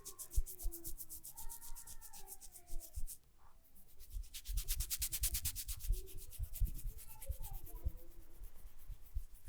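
Hands rubbing rapidly and firmly over skin during a massage, about ten quick friction strokes a second, growing louder about halfway through, with soft dull thumps underneath.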